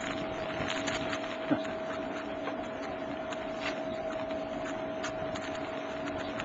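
Steady deck noise of a ship under way through brash ice: a continuous hum with one held tone, a hiss, and scattered light ticks, with one sharp knock about a second and a half in.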